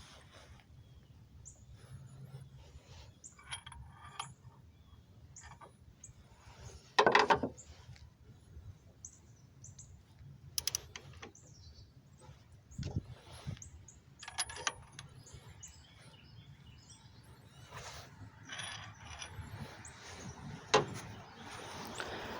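Scattered metallic clicks and clinks of hand tools being worked, with a louder clatter about seven seconds in and a sharp knock near the end.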